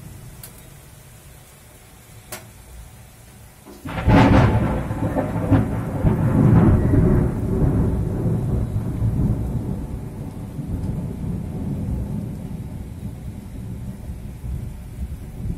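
A close thunderclap about four seconds in: a sudden sharp crack that rolls into a long low rumble and slowly dies away, over steady rain.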